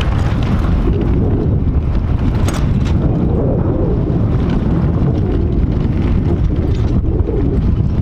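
Wind buffeting the camera microphone in a loud, steady low rumble while riding in an open golf cart.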